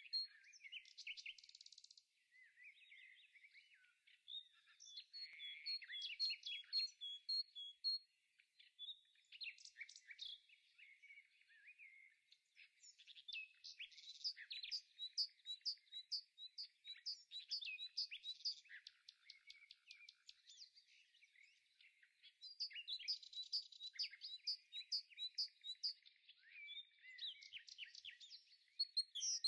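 Songbirds chirping and singing: quick, high chirps and trills one after another, with a few brief lulls.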